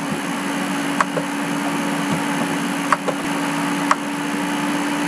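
Steady room hum with a constant low tone and hiss, like a computer fan or air conditioner, with a few sharp clicks of computer keyboard typing about one, three and four seconds in.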